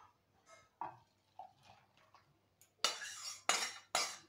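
Metal utensil knocking and scraping against a stainless steel kadai as dal is poured out of it into a steel bowl. A few light clinks come first, then three louder scrapes about half a second apart in the last second and a half.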